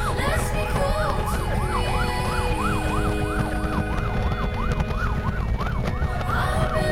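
A siren-like wail sweeping quickly up and down, about two and a half sweeps a second, over held tones that change pitch now and then and a steady low rumble.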